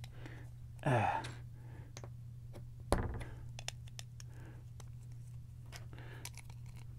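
Vintage LEGO bricks clicking and knocking as they are handled and pressed together by hand, in many small irregular clicks with a louder knock about three seconds in. A short falling hum of a voice about a second in.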